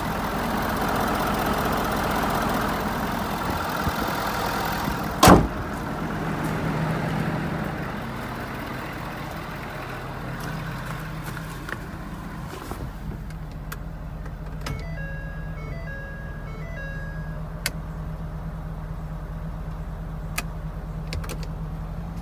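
Ford 6.7 L Power Stroke V8 turbo-diesel idling steadily. About five seconds in comes a single loud slam, the hood being shut, after which the idle sounds more muffled; later a short run of electronic chime beeps sounds over the idle.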